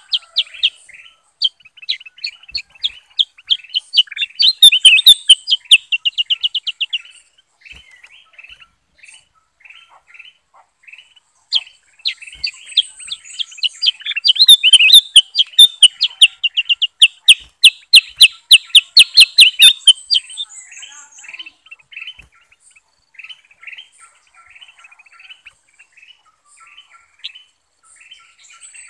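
Caged bulbuls (kutilang emas and kutilang sutra) singing and chirping. Loud, fast runs of rapidly repeated high notes come about 4 seconds in and again from about 12 to 20 seconds, with quieter scattered chirps between.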